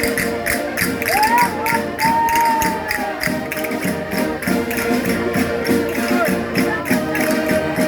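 Portuguese folk dance music played on concertinas (diatonic button accordions): sustained reedy chords over a quick, even beat of about five strokes a second.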